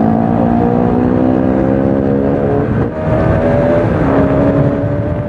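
Motorcycle engine pulling under acceleration, its pitch climbing steadily, dropping once a little under three seconds in as it shifts up, then climbing again.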